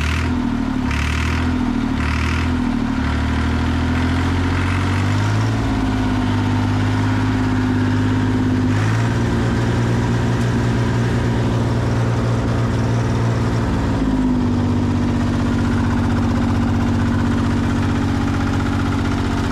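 Massey Ferguson 200 Turf tractor's three-cylinder diesel engine running. Its speed wavers unevenly at first, steps up twice, drops back about two-thirds of the way through, then holds steady. The owners take the engine to be missing on at least one cylinder.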